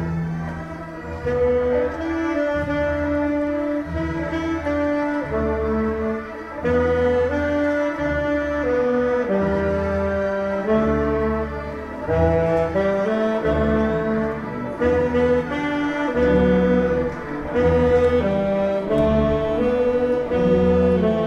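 Community youth orchestra of strings, woodwinds and brass playing live, a melody of held notes stepping up and down over a recurring low bass.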